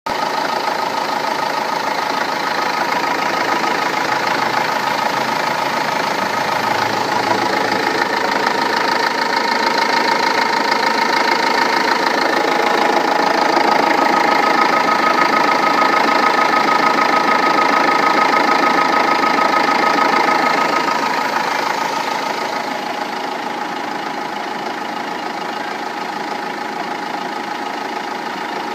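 Renault Laguna II 2.2 dCi four-cylinder turbodiesel engine running at idle with a steady knocking, nailing clatter, heard after a timing belt and water pump change. It gets louder through the middle and drops back a little past two-thirds of the way in.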